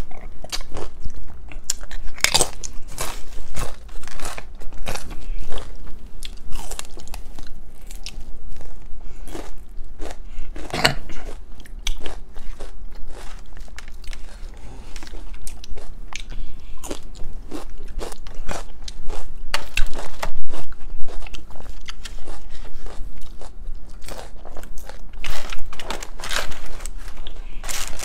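Close-miked eating: crisp tortilla chips and fried food bitten with sharp crunches, then chewed, over and over, with a few louder crunches about two seconds in and near the middle.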